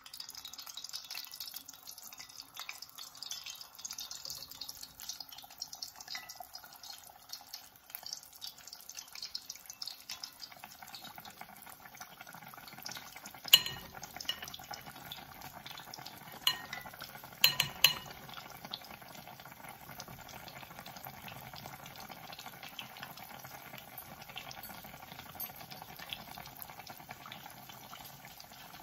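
Beer-battered cod frying in hot oil: a continuous crackling sizzle, with a few sharp clicks about halfway through.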